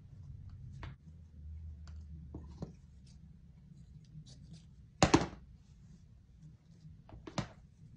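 Crafting handling sounds: green-handled scissors snipping a strip of muslin fabric, then the muslin torn by hand in a short loud rip about five seconds in, with a smaller rip near the end.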